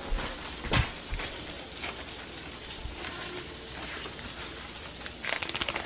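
Steady hiss with a single knock about a second in, then a quick crinkling rattle near the end as a bag of powdered sugar is shaken over a pancake.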